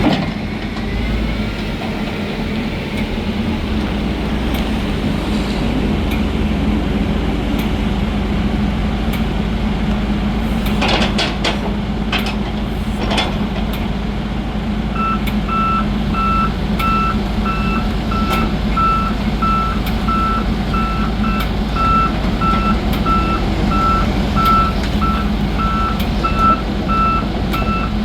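Diesel engine of a 2013 Volvo EX140DL excavator running steadily, with a few metallic clanks near the middle. From about halfway on, its travel alarm beeps at an even pace, the sign that the machine is moving.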